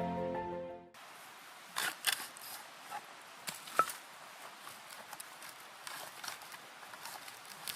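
Background music stops about a second in, then light, irregular clicks and knocks over a faint steady hiss.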